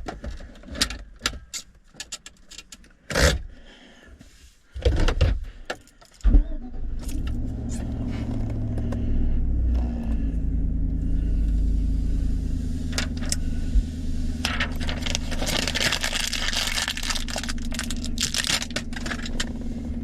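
Keys jangling and clicking, then about six seconds in the 2010 Chevrolet Silverado's engine starts and settles into a steady idle. A few seconds of hiss sound over the idle near the end.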